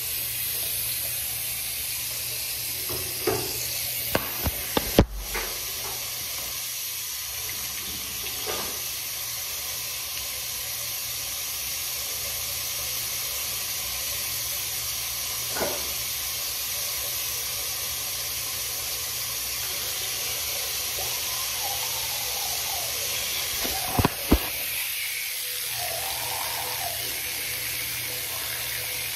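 Bathroom sink tap running steadily. A few short knocks and clicks come a few seconds in, and a sharp pair about two-thirds of the way through.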